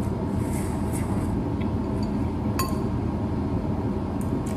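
A metal fork clinking a few times against a ceramic noodle bowl while yellow noodles are slurped, with one sharp clink about two and a half seconds in. Under it runs a steady low rumble from the kitchen's extractor hood fan.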